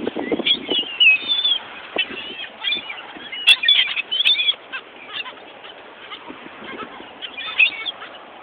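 A flock of wild birds begging for bread, many short squawking calls overlapping in quick succession and thinning out in the second half.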